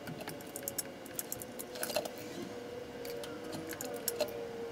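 Scattered light metallic clicks and small rattles, in short clusters, as the crankshaft of the 3VZ-E V6 is turned over by hand with a tool, over a faint steady hum.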